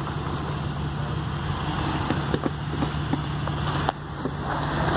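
Jeep Cherokee XJ engine running steadily at low revs as the Jeep crawls over boulders, with a few sharp clicks and knocks from the rocks under the tyres.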